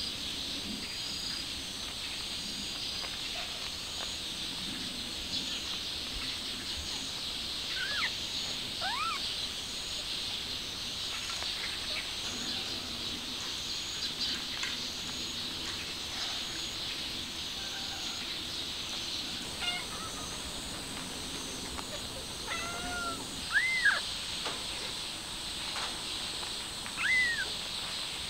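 A few short, high mews from newborn kittens, each rising and falling in pitch: one pair about a third of the way in and two louder ones near the end. Under them runs a steady high chirring of insects.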